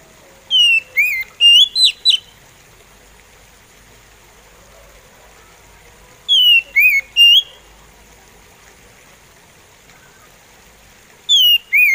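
Oriental magpie robin singing slowly: three short phrases of clear whistled notes several seconds apart, each a falling whistle followed by a few quick rising notes.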